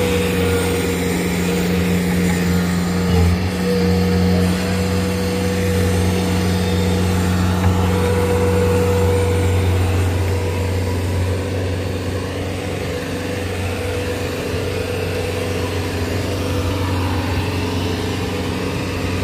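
Bobcat T190 compact track loader's diesel engine running steadily at a constant speed, easing off slightly about halfway through.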